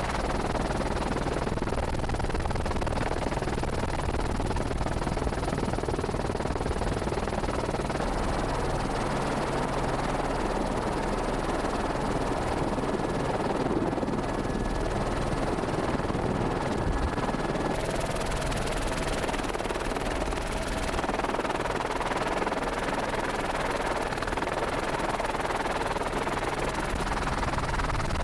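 Steady helicopter noise: a constant rotor and engine drone with a rush of air, heard from inside the camera helicopter.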